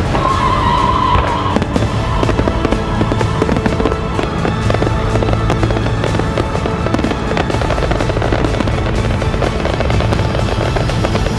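Salute fireworks at a temple festival, a dense, continuous crackle of rapid small bangs and bursts.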